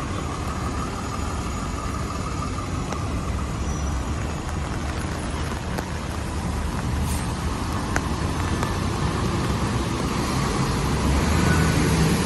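Street traffic on a wet road: a steady hiss of passing cars' tyres with a low rumble, growing louder near the end as a vehicle's engine comes close.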